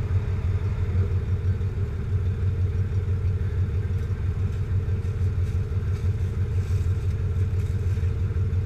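Jeep Cherokee XJ engine idling with a steady low rumble, heard from underneath the vehicle.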